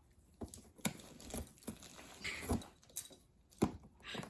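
A cat biting and tearing at cardboard with its teeth: a string of short, irregular crunches and snaps.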